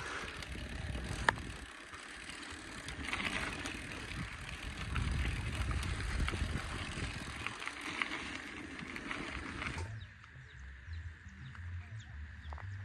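Loaded touring bicycle rolling over a rough, rutted dirt road: a steady noisy rumble of tyres and rattling with a sharp click about a second in. About ten seconds in it cuts off suddenly to a much quieter scene.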